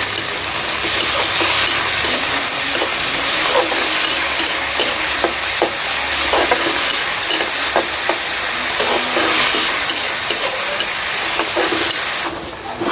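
Chopped onions and tomatoes sizzling in hot oil while being stirred, with scattered light scrapes and taps of the stirring spoon against the pan. The sizzle cuts off suddenly about a second before the end.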